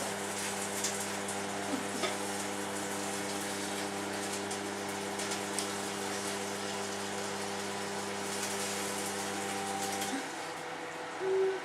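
Microwave oven running with a steady hum, a few faint crackles from the egg heating inside. The hum cuts off about ten seconds in, followed by a short beep.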